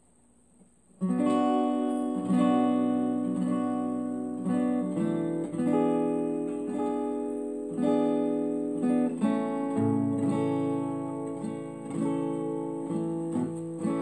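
Acoustic guitar strumming chords, starting suddenly about a second in and continuing with regular strums that ring between strokes.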